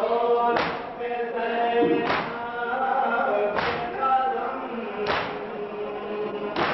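A group of men chanting a noha in unison, with collective matam (chest-beating): five sharp slaps of hands on chests, about one and a half seconds apart, in time with the chant.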